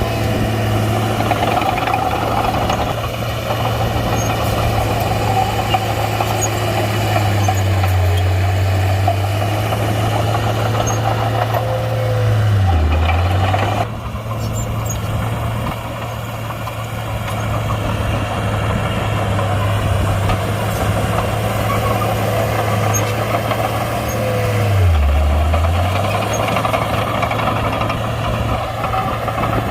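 Komatsu D31-P bulldozer's diesel engine running steadily as it works dirt, its pitch sagging briefly twice, about halfway through and again near the end, as it takes load.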